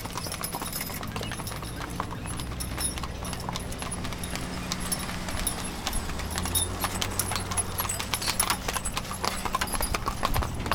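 Hooves of mules and horses clip-clopping on an asphalt road as they pull wagons, many overlapping strikes at an uneven pace. A low steady hum runs underneath and grows stronger about halfway through.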